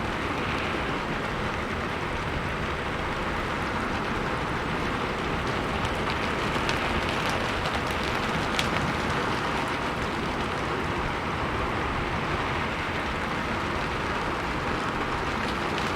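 Steady rain falling on a roof, an even dense patter with scattered sharper drips.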